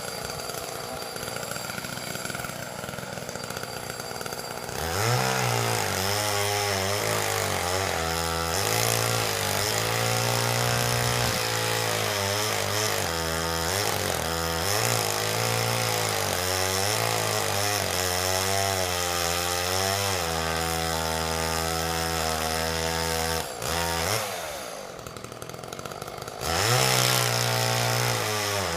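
Two-stroke chainsaw idling, then run at full throttle cutting into a tree trunk, its engine speed dipping and recovering again and again under the load of the cut. It drops back to a lower speed about 24 seconds in and revs up again near the end. The bar got pinched in the cut, by the sawyer's own account.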